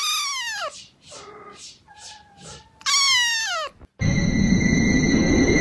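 Kitten meowing: two loud, drawn-out meows falling in pitch, about three seconds apart, with softer meows between them. About four seconds in, a steady hiss with high constant tones takes over.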